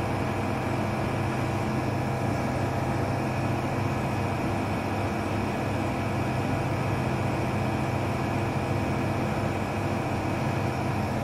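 Nebulizer compressor running with a steady, unchanging hum.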